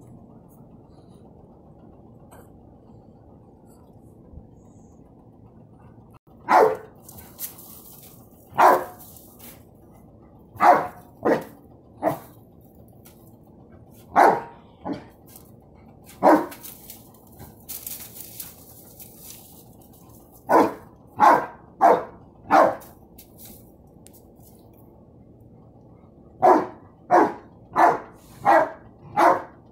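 Dog barking at a balloon. The barking begins about six seconds in, after a low steady background hum. It comes first as single barks a second or two apart, then as quick runs of four or five barks, about seventeen in all.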